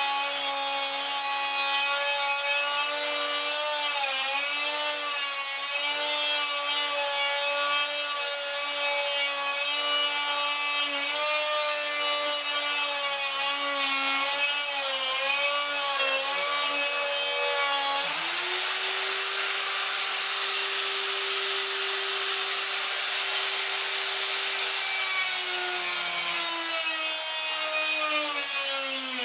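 Die grinder fitted with a mounted grinding point, running under load while it grinds out and enlarges a hole. Its steady whine wavers and dips in pitch as the point bites. About two-thirds of the way through the pitch rises as the load eases, then it drops back again near the end.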